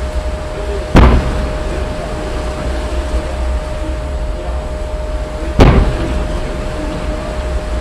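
Steady wind rumble on the microphone at sea, broken by two sharp bangs about four and a half seconds apart, the first about a second in, each with a short echoing tail. A faint steady tone runs underneath.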